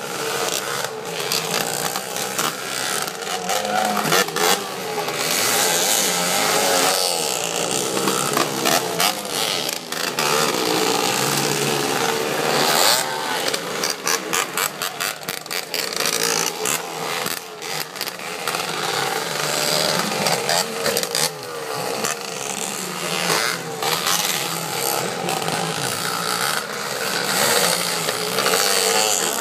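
Motorcycle engines racing on a dirt track, revving up and down as the bikes pass.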